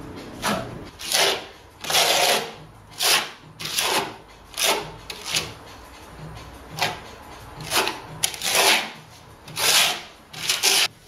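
Steel trowel scraping wet microcement across a plywood cabinet side in repeated strokes, about a dozen at roughly one a second.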